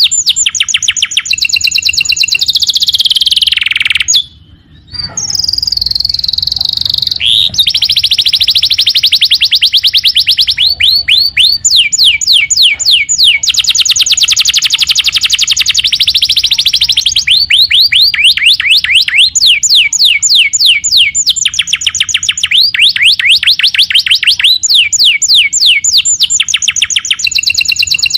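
Domestic canary singing a long, loud song of fast rolling trills: phrases of rapidly repeated down-slurred whistled notes, changing from one phrase to the next, with a brief break about four seconds in.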